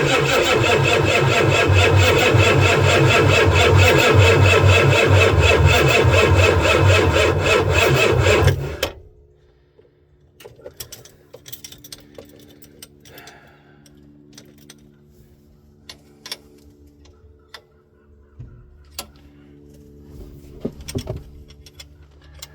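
1990 Ford E350's diesel V8 being cranked over on the starter for about nine seconds without catching, then the starter stops; the engine won't fire because fuel is not yet reaching the injector lines. Afterwards only a low steady hum and a few light clicks and taps.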